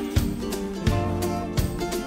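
Background music: an upbeat acoustic guitar tune with a steady beat.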